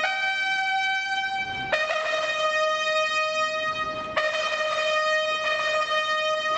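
A solo brass horn sounds a ceremonial salute call in long held notes. It holds a higher note for under two seconds, drops a third, and holds the lower note, re-sounding it about four seconds in.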